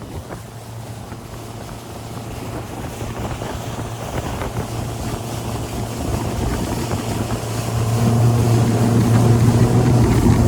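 Motorboat engine running with a steady low drone that grows louder through the clip and is loudest near the end.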